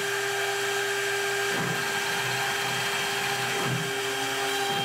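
Spindle motor of a CNC router running steadily with a high whine. From about a second and a half in, the stepper motors add a shifting whir as the machine moves the bit across the plywood.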